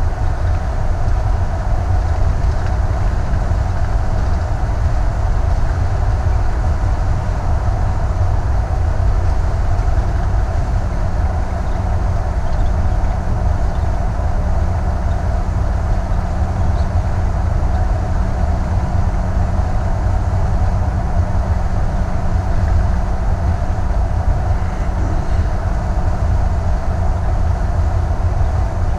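Steady low rumble of a Thor Vegas motorhome driving at highway speed, heard from inside the cab: engine, tyre and road noise with a faint steady hum over it.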